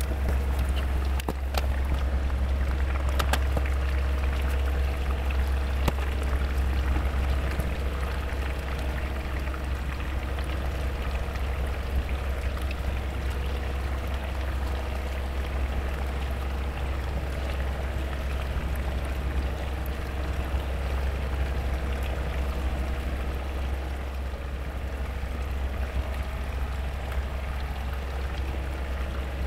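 Pumpkin, onion and water simmering in a frying pan: a steady bubbling, crackling liquid sound with a steady low hum underneath, and a few sharp ticks in the first few seconds.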